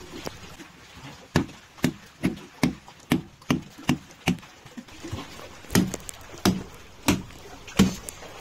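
A large knife chopping through a blue marlin's head near the bill, striking down onto a wooden block. About eight blows come at roughly two a second, then after a short pause four slower, heavier blows.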